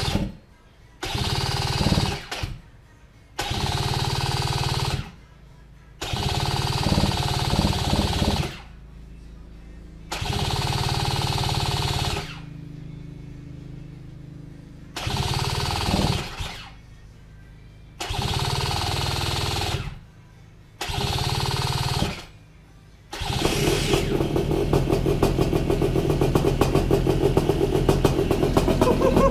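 Paramotor engine on its first start: about eight short start attempts, each a second or two long with pauses between, until about 23 seconds in it catches and keeps running with a fast, even beat.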